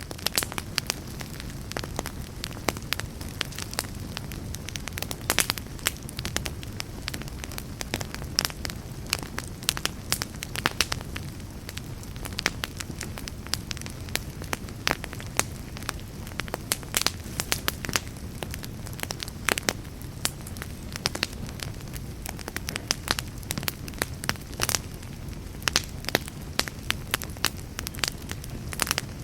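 Wood fire burning in a fireplace, crackling and popping with irregular sharp snaps over a steady low rumble of the flames.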